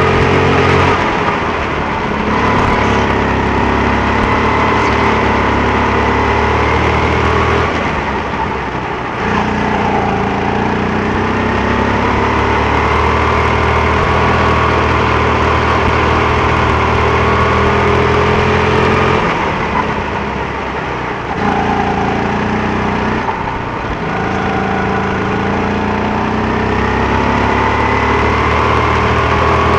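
Go-kart engine running hard, its note falling away and climbing again several times, with the clearest drops about eight seconds in and around twenty seconds in.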